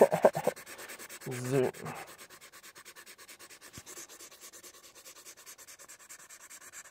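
Sharpie marker's felt tip dabbing and scratching rapidly on paper, an even patter of small taps several times a second. A couple of brief voiced sounds from a person come near the start and about a second and a half in.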